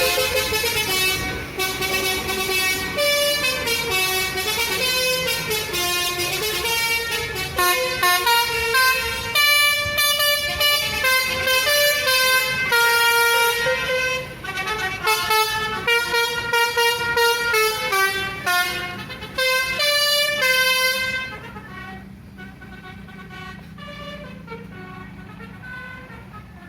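Tour bus's basuri telolet horn, a set of electric air-horn trumpets, playing a fast tune of stepping notes. Near the end the tune stops, leaving a quieter low engine hum.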